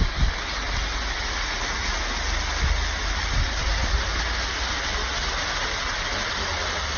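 A steady rushing noise with a low rumble underneath, even throughout.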